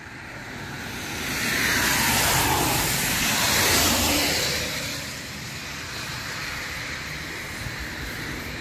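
A car passing at highway speed, its tyre and road noise swelling to a peak about two to four seconds in and easing off by about five seconds, leaving a steady road hiss.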